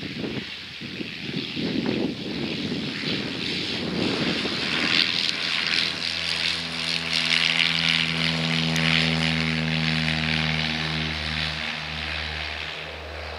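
Cessna 172's propeller engine at full takeoff power during its takeoff roll and lift-off, a steady, even drone. Wind rumbles on the microphone in the first half, and the engine's drone stands out clearly from about halfway through.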